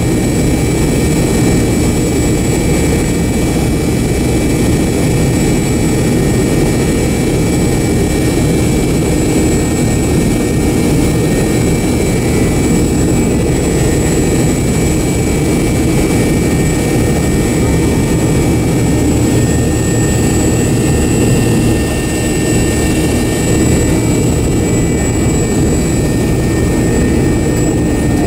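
The MD-88's two Pratt & Whitney JT8D-219 turbofans running steadily at idle power on the ground, heard from inside the cabin: a constant rumble under a few fixed high whining tones, with no spool-up.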